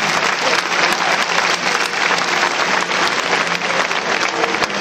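Audience applauding steadily, a dense clapping that holds at an even loud level throughout.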